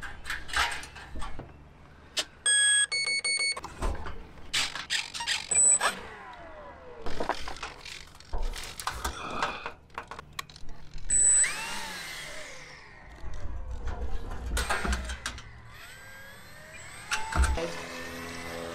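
Knocks and clicks of the RC seaplane being handled. A short run of electronic beeps comes about three seconds in. Near the end the plane's electric motor and propeller start to whir.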